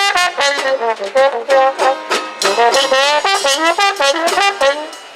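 Trombone with a hand-held mute at its bell playing a jazz phrase of short, quick notes with a few slides, over banjo strumming.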